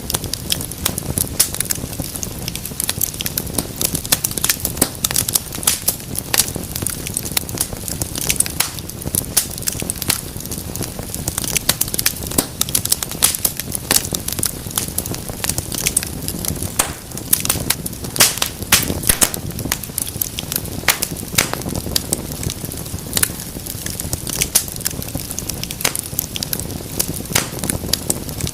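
Wood fire in a fireplace crackling, with many irregular sharp pops and snaps over a steady low rumble of the flames.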